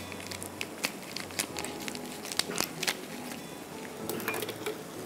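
Plastic wrapping crinkling as it is snipped with scissors and peeled off a block of cheese: a run of small, irregular crackles and snips.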